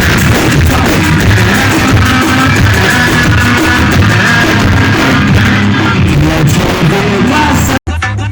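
Loud music with heavy bass played through a car sound system. Near the end it cuts out abruptly and different music starts.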